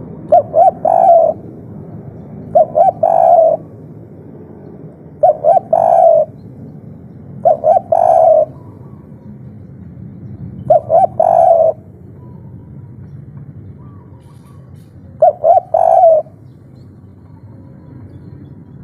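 Spotted dove (tekukur) cooing its three-note 'kuk 3' call: two short coos followed by a longer one. The phrase comes six times, two to four seconds apart, over a steady low background hum.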